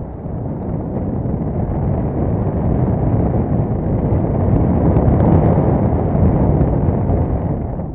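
Airflow buffeting the microphone of a camera mounted on a hang glider's wing in flight: a steady, low rush of wind noise that grows a little louder toward the middle.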